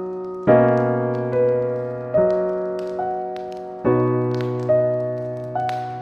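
Slow piano music: single notes and chords struck about every second and left to ring and fade. Faint crackles of a wood fire pop here and there underneath.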